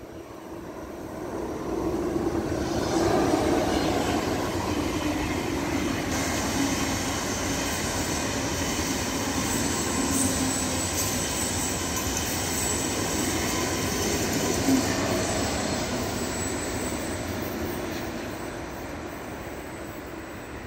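Long single-deck passenger train passing close: a steady rush and rumble of wheels on the rails. It swells about two seconds in and fades over the last few seconds, with a thin high squeal about halfway through.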